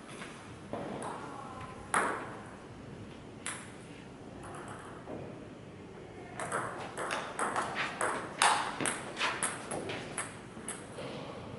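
Table tennis rally: the ball clicks sharply off paddles and the table, a few scattered bounces first, then a quick run of hits several times a second from about halfway in until the point ends near the end.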